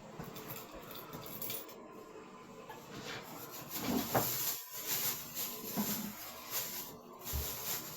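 Channel-lock pliers pulling and scraping clumps of hair off a plastic barbed drain-cleaning strip. Irregular rubbing and scraping, quiet at first and busier from about three seconds in, with a few soft knocks.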